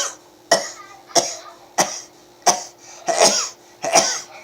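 A man sneezing in a rapid fit, about seven sharp sneezes in quick succession roughly two-thirds of a second apart.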